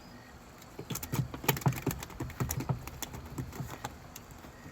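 A quick, irregular run of clicks and knocks as a bass is handled between counts, thickest in the middle and tailing off near the end.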